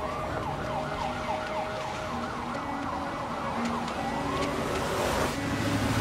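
Emergency vehicle siren switching from a slow wail into a rapid yelp, about four up-and-down sweeps a second, then back to a rising wail about four seconds in. Street traffic noise swells near the end.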